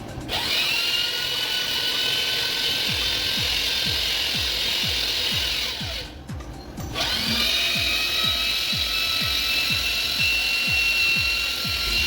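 Electric motor of a cylinder-machining power tool spinning up to a steady whine, winding down to a stop about six seconds in, then starting again about a second later and running on. Background music with a steady kick-drum beat plays underneath.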